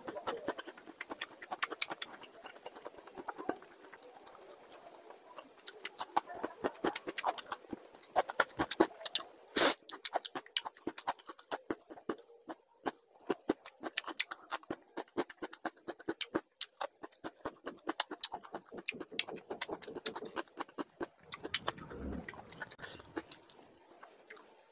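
Close-miked wet eating sounds of a man eating rice and curry with his hand: steady chewing, lip smacks and finger licking, with one louder click about ten seconds in.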